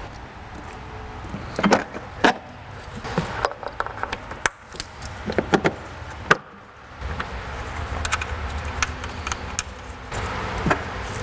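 Scattered clicks and light metal clinks of hands working on parts in a car's engine bay, with a low steady hum coming up about seven seconds in.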